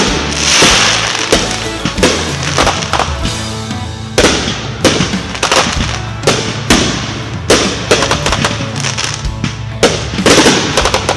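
Aerial fireworks going off: repeated sharp bangs, sometimes one or two a second, with a crackling hiss of bursting stars shortly after the start, over music playing throughout.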